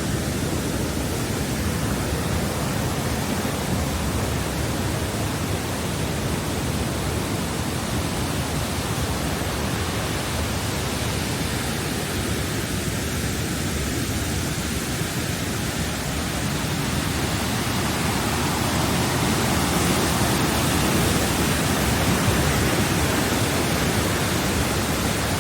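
Nunobiki waterfall, water pouring down in a steady rush that grows a little louder after about eighteen seconds.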